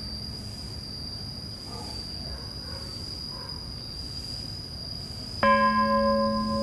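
Insects chirping steadily in a high, even trill; about five seconds in, a temple bell is struck once and rings on with several sustained tones.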